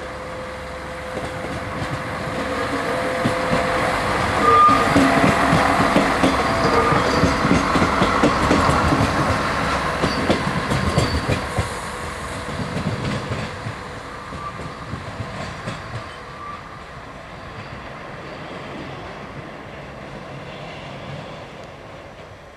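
SNCF X 73500 single-car diesel railcar passing by, its diesel engine running and its wheels clacking over the track. It grows louder to a peak about five seconds in and fades away after about twelve seconds as it moves off.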